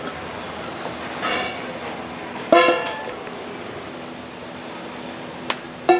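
A stainless-steel ladle stirring and clanking against a large metal pan. One loud ringing clang about two and a half seconds in dies away quickly, and a click and a quick pair of clanks follow near the end.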